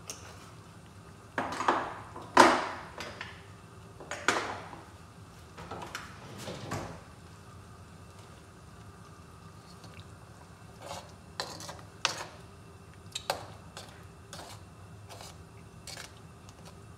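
A spoon stirring thick sauce in a nonstick skillet: a few scrapes and knocks against the pan with liquid sloshing, the loudest about two and a half seconds in, then a run of short, lighter taps over the last several seconds.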